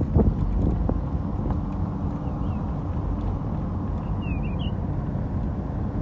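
Steady low rumble of a car driving along a road, road and engine noise with some wind on the microphone. A short high chirp sounds once about four seconds in.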